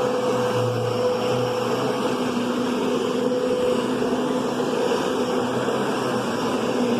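Kenmore Progressive vacuum cleaner running steadily, a continuous motor hum with a whirring rush of air.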